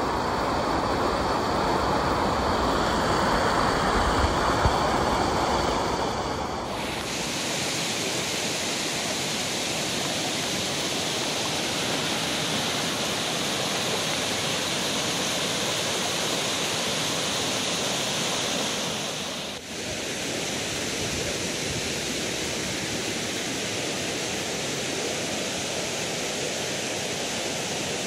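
Rushing water: a waterfall pouring down right over the microphone, then water running over rock in a stream, a steady even rush that changes abruptly about 7 and 20 seconds in.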